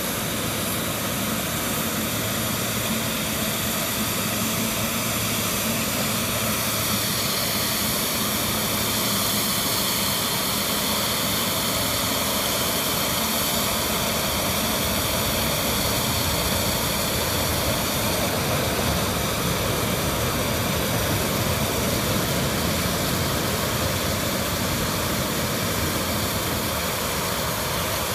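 Jet engines of a twin-engine wide-body airliner taxiing at low thrust: a steady whine and rush with high tones held over a constant hiss.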